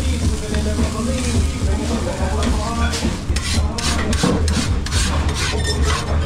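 Char grill bars being scraped or brushed clean in a run of quick rasping strokes from about halfway through, over a steady low hum.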